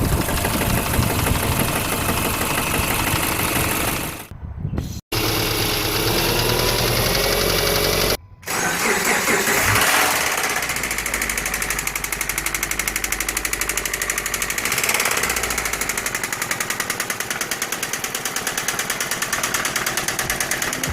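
2008 Subaru Impreza's 2.5-litre flat-four engine running with an even, rapid knock.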